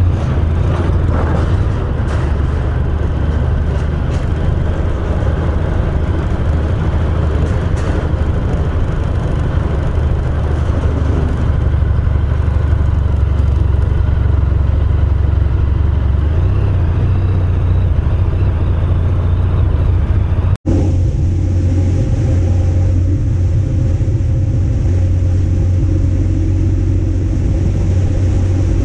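Honda VFR1200X's V4 engine running as the motorcycle rides slowly down a ferry ramp and across a port lot. About two-thirds of the way through, a sudden cut leads to the same bike cruising on an open road at speed.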